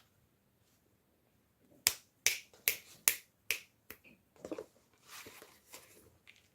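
Handling sounds: a run of six sharp clicks, about two and a half a second, then softer rustling.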